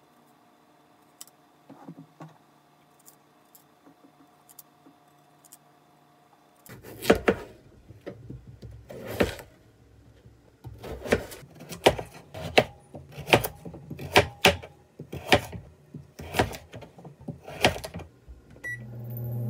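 Kitchen knife chopping peeled potatoes and then a carrot into large chunks on a cutting board: about a dozen irregular chops, each a sharp knock of the blade through the vegetable onto the board. Before the chopping, a few seconds of faint small clicks while the eyes are dug out of a potato, over a low steady hum.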